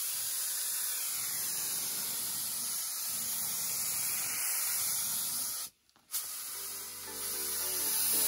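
Gravity-feed spray gun hissing steadily as it lays clear lacquer onto a panel. The air cuts off briefly about six seconds in, then resumes. Background music comes in near the end.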